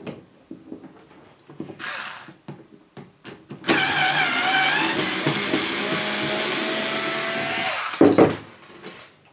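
Bosch IXO cordless screwdriver running for about four seconds, spinning out a screw from the cassette deck's chassis, with a steady motor whine that rises slightly just before it stops. Light clicks of hand tools come before it, and a short clatter just after.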